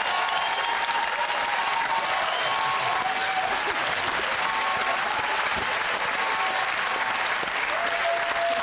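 Studio audience applauding steadily, a dense continuous clapping.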